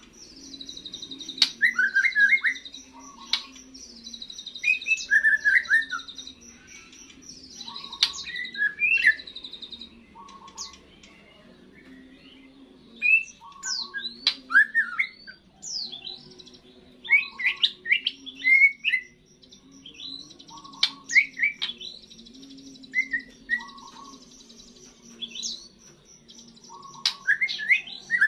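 Young white-rumped shama singing its first song after its moult: short, scattered whistled phrases of quick rising and falling notes with pauses between them. Under it runs a steady high rapid trill and a low hum.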